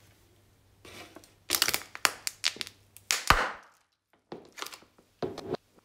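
A clear plastic cup with red contents crushed under a high-heeled sandal: a dense run of sharp plastic cracks and crackles over about two seconds, then a second, shorter run of crackles about a second later as it is pressed flat.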